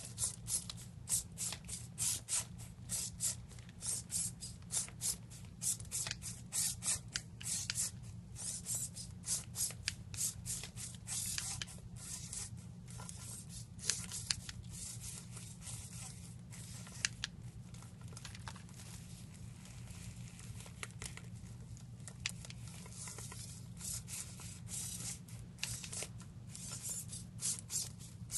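Servo motors of a legged walking robot buzzing in short, rapid rasps as the legs step, with the robot's plastic feet scuffing on carpet, over a steady low hum. The rasps come thick and fast in the first half and thin out further on.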